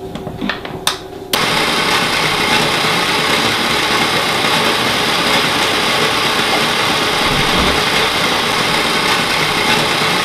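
A few light knocks, then about a second and a half in an electric stand mixer switches on and runs steadily at slow speed, its beater turning through a stiff mix of margarine, sugar, flour and currants to bring it to a dough.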